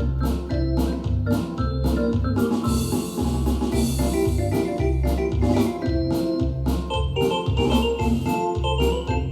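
Yamaha DX7 FM synthesizer playing an organ-like patch: chords and melody over a repeating bass line with a steady, even beat. A cymbal-like hiss swells about two and a half seconds in.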